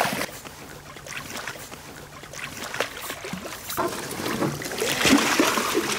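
Water splashing and sloshing as a hooked steelhead thrashes at the surface beside a raft, louder in the second half.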